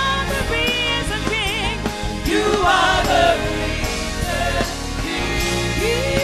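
Gospel worship music: a singer's voice with wavering vibrato over steady instrumental accompaniment with a low bass.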